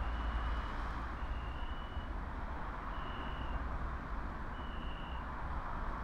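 A single high electronic beep repeating about every one and a half seconds, each beep a little over half a second long, over a steady low rumbling hum.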